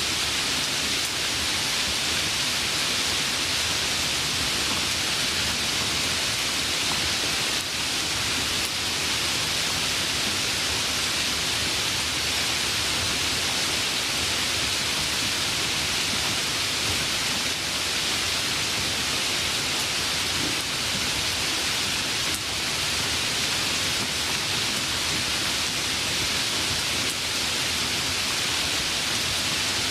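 Steady, even rain hiss with no thunder.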